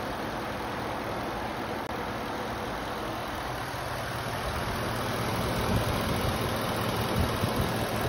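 Gasoline truck engine idling steadily, heard close up under the open hood, with a low even hum beneath the running noise.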